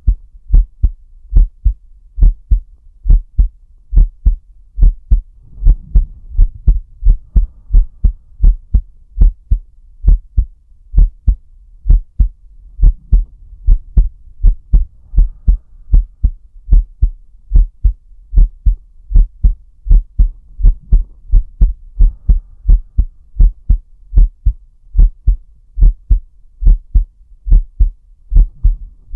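A man's heartbeat picked up close to the chest: steady, regular low thuds in lub-dub pairs. Soft low swells of deep breathing rise and fall about every seven seconds beneath the beats.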